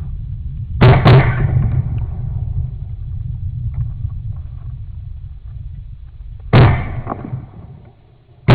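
Shotgun shots: two in quick succession about a second in, another about six and a half seconds in, and a fourth right at the end, each ringing out after the blast. A low rumble runs underneath and fades away.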